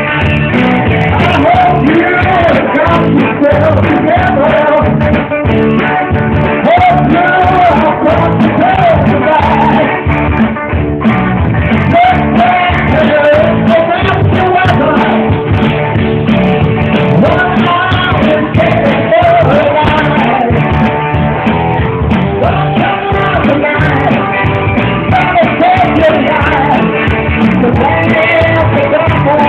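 Live band playing loudly, with a singer over guitar and drums.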